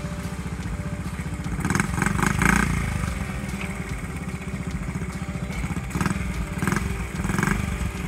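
1969–70 Honda Z50 minibike's small four-stroke single-cylinder engine running with a fast, steady putter, opened up in two louder stretches of throttle, about two seconds in and again around six to seven seconds in.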